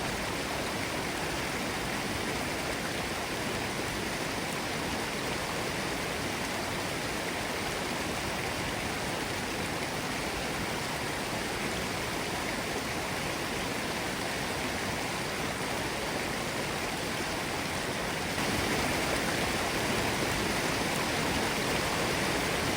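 Mountain stream bubbling and rushing steadily over its bed, a little louder for the last few seconds.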